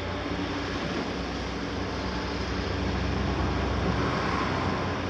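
Six-cylinder diesel engines of two large hydraulic excavators, a Caterpillar 345C and a Liebherr R 946, running steadily under load as they swing and lift their booms, with a deep rumble. The sound grows a little louder about three to four seconds in.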